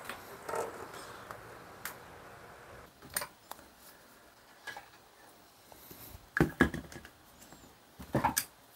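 Tools being handled at a workbench: scattered light clicks and knocks, then clattering about six and a half and eight seconds in as a screwdriver is pulled out of a metal screwdriver stand.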